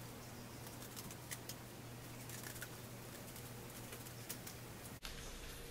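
Faint scattered snips and clicks of scissors cutting a cardboard patch template, over a low steady hum.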